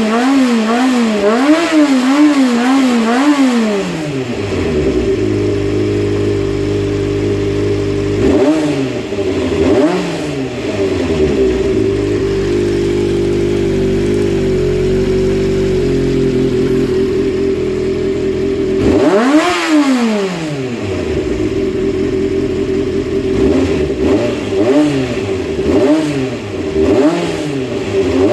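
Honda CBX400F air-cooled inline-four engine on freshly repaired and adjusted carburetors, revved in quick throttle blips, dropping back to a steady idle, given one bigger rev about two-thirds of the way in, then blipped repeatedly again near the end: a check of the carburetors' throttle response and idle.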